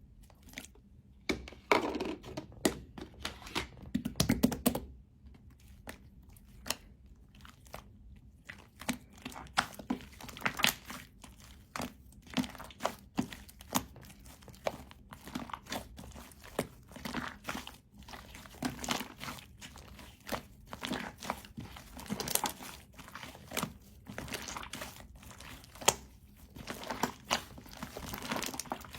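Hands squishing and stretching white shaving-foam slime, giving a dense, irregular run of short sticky crackles and clicks.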